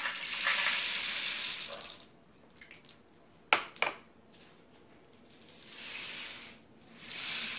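Rice grains pouring into a homemade cardboard-tube rain stick and trickling down through its toothpick pins: a dry rushing hiss for about two seconds, then two sharp knocks about three and a half seconds in, then two more rising and fading swells of hiss near the end as the tube is tipped.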